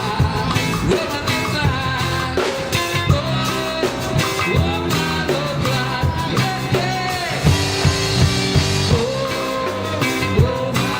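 Live band playing a reggae song, with a steady bass line, a drum beat and a gliding melody line over it.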